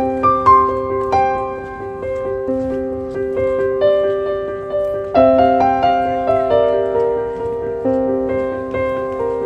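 Background piano music: single notes struck over held chords, each note dying away slowly.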